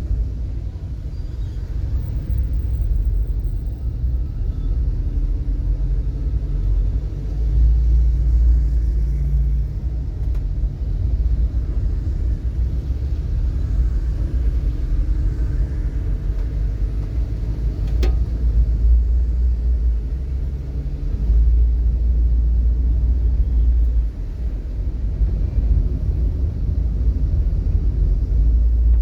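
Low, steady rumble of a moving vehicle in traffic, swelling and easing, with a single click about eighteen seconds in.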